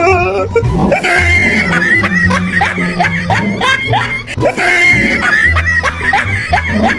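Background music with a steady bass beat, overlaid with high-pitched laughter in quick rising and falling peals.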